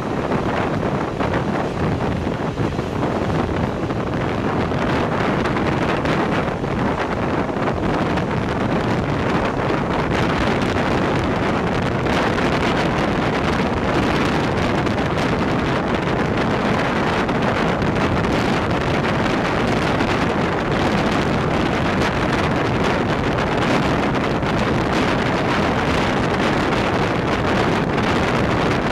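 Steady rushing noise of wind buffeting the microphone over the even rumble of a train in motion.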